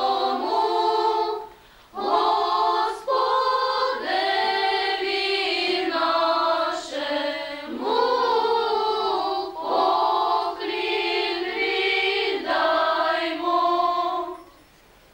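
A group of young girls singing a Christmas carol together without accompaniment, in long held phrases with a short breath about a second and a half in. The singing stops shortly before the end.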